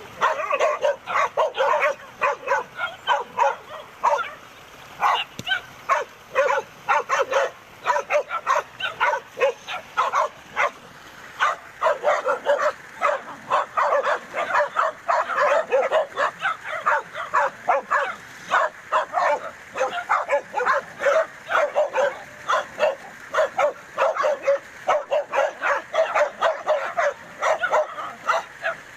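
A dog barking and yapping in short, sharp bursts, several a second, almost without let-up.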